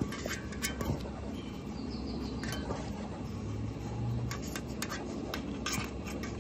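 Dough balls being set down one by one in a stainless-steel pan, with a few scattered light taps and clinks of hand and dough against the metal.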